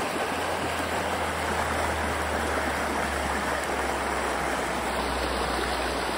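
Creek water rushing steadily over a line of stacked rocks and through a shallow riffle.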